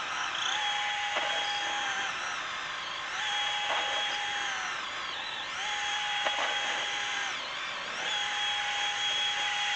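Electric drill with a half-inch bit boring into a wooden gate post, making a hole for a screw-in gate hinge. The motor's whine sags and picks back up about every two seconds as the bit is worked in and out to wallow the hole out a little bigger.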